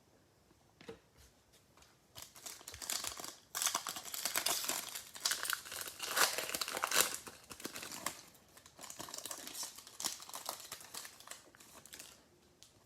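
Trading-card pack wrappers crinkling and tearing as a pack is ripped open and handled, in uneven stretches of crackling for most of the time.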